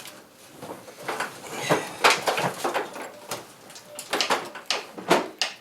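Pro 5.0 short shifter being run through the gears: a string of irregular sharp clicks and clunks as the lever snaps in and out of gear.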